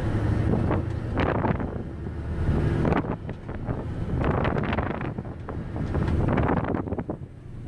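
Isuzu 6x4 dump truck's diesel engine running steadily while driving, heard from inside the cab, with repeated gusts of wind noise on the microphone.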